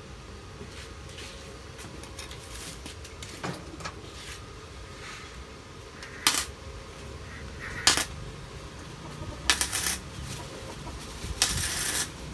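Pieces of cut steel angle bar being handled, giving several sharp metallic clinks and clanks a second or two apart, louder and more clustered in the second half.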